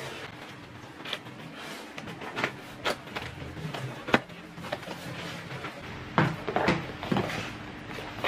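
Cardboard shipping box being handled and its top flaps pried open: scraping and rustling of cardboard with several sharp knocks, the loudest a little after four seconds in and again around six to seven seconds in.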